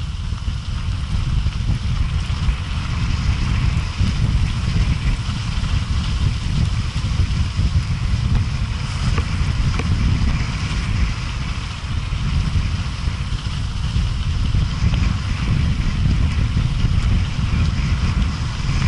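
Wind buffeting a moving action camera's microphone as a rough, steady rumble, with mountain bike tyres rolling over a loose gravel track beneath it.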